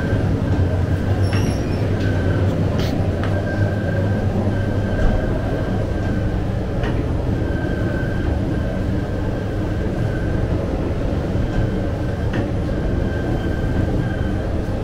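Bakery dough machinery running: a steady mechanical drone with a faint high tone that comes and goes and a few sharp clicks.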